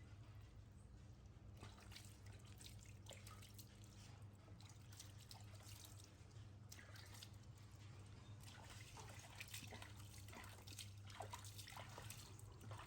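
Faint water dripping and trickling, with scattered small splashes and clicks, over a low steady hum.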